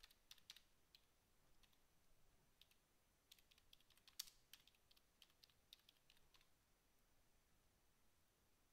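Faint computer keyboard typing: irregular keystrokes for about six seconds, then they stop.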